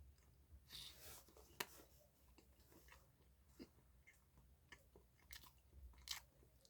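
Faint chewing of a soft chocolate roll cake: scattered quiet mouth clicks and smacks over near silence.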